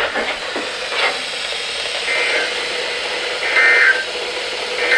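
NOAA Weather Radio over a steady static hiss. The voice fades out about a second in, then come short bursts of two-pitch digital data tones, three in all, about 1.3 s apart. The pattern is that of the SAME/EAS end-of-message code that closes a weekly test.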